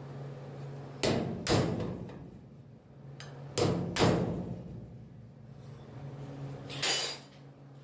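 Sharp metal-on-metal strikes on the sheet-steel quarter panel of a 1964 Impala, each ringing briefly: two pairs of blows, then a single one near the end, as a flat steel bar is worked against the panel edge at the fuel-filler opening. A low steady hum runs underneath.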